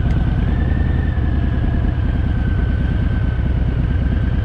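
Harley-Davidson Fat Boy's V-twin engine running at a steady speed while riding, its firing pulses a continuous deep throb.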